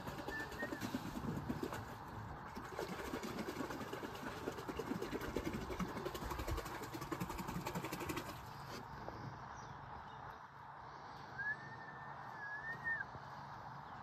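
A rough, steady background noise that drops to a quieter, even hiss about nine seconds in. Near the end a bird gives a whistled call, rising then falling, about a second and a half long.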